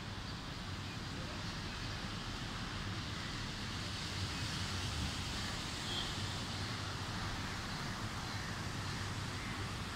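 Heavy rain pouring steadily: an even, continuous hiss.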